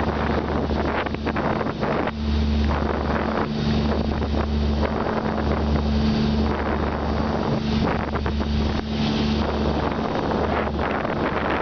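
Boat engine running steadily under way, a constant low hum, with wind buffeting the microphone and the rush of the churning wake.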